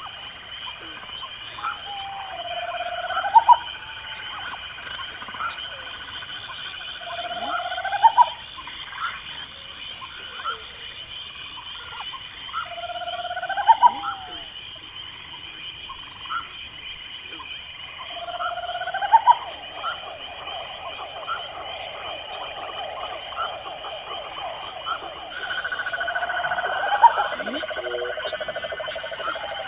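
Night chorus of crickets: a steady high-pitched trill throughout, with faint regular ticks above it. A lower call that rises at its end repeats every few seconds, and a lower pulsed trill runs for several seconds from about two-thirds of the way in.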